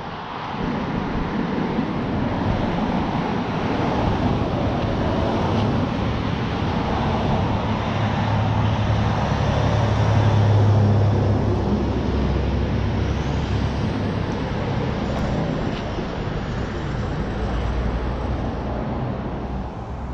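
Road traffic noise, with a vehicle's low hum swelling to a peak about halfway through and then fading.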